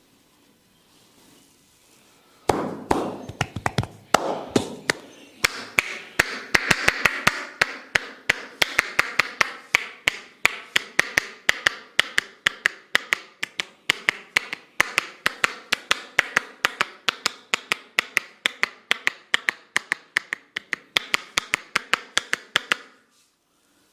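Barber's hands striking rapidly in a percussive head massage, about four sharp taps a second in an even rhythm. The tapping starts about two and a half seconds in and stops shortly before the end.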